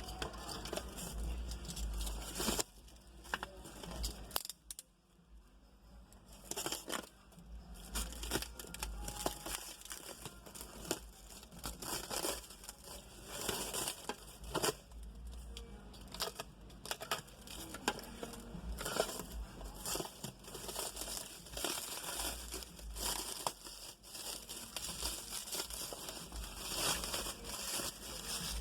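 Hands handling plastic: irregular crinkling and rustling with scattered clicks and knocks, easing into a brief lull about five seconds in.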